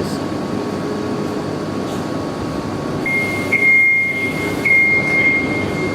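Steady mechanical rumble of heavy equipment moving an industrial pod across a shop floor. A high, steady whine joins about halfway through and holds to the end.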